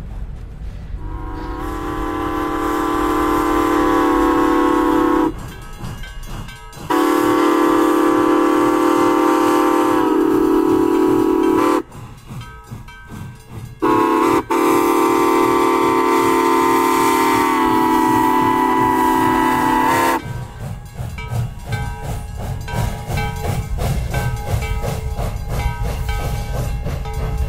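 Steam locomotive's Southern Pacific six-chime whistle, built by Osborne Whistle Works, sounding a loud multi-note chord in the grade-crossing signal: long, long, short, long. The train then rolls past with a fast, even clicking rhythm.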